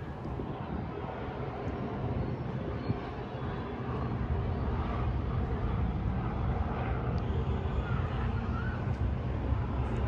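Outdoor ambience: a steady low rumble that grows slightly louder, with faint distant voices.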